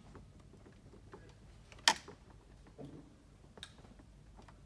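Light mechanical clicks from the throttle linkage of a Mercury 40 outboard being worked by hand, with one sharp click just before two seconds in and a few fainter ones after.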